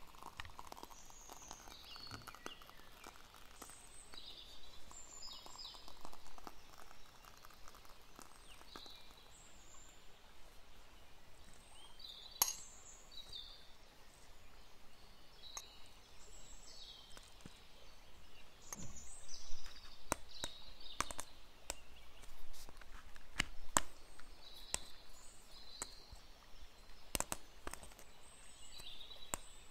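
Light clicks and taps of clear plastic dessert cups, lids and a metal spoon being handled, busiest in the second half, over faint high chirps of birds in the background.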